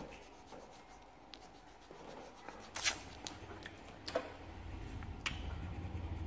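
Faint scratching of a coloured pencil on paper, then a few light clicks and taps as the pencil is set down and the paper handled, the sharpest about three seconds in.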